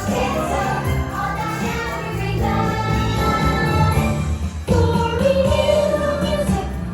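Christmas parade music over loudspeakers: a choir singing with jingle bells.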